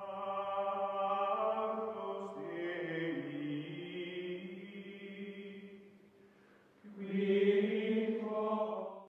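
Outro music of sustained choir-like chanting voices in long held chords. It fades away about six seconds in, then swells back near the end and cuts off abruptly.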